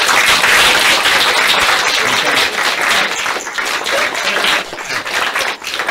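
Audience applauding: many hands clapping at once, loud and sustained, thinning slightly toward the end.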